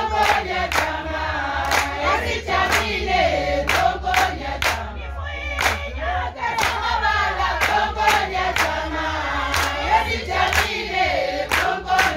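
A group of voices singing a sangoma dance song, with a sharp struck beat about twice a second under it.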